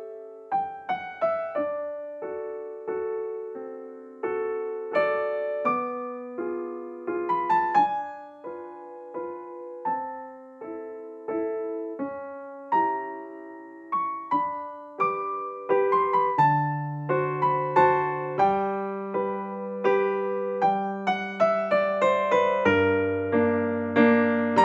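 Background piano music: a gentle melody of single struck notes that each fade away, with lower bass notes joining about two-thirds of the way in.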